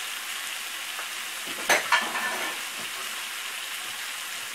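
Chopped tomatoes, peppers, onion and potatoes frying in oil in a pan, a steady sizzling hiss. About a second and a half in there are two sharp clacks close together.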